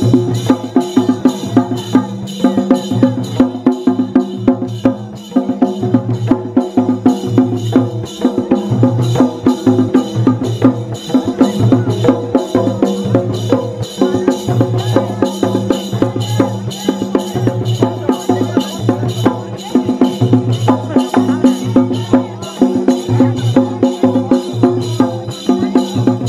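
Drum-led music with a fast, steady repeating beat over a pulsing bass line, starting abruptly.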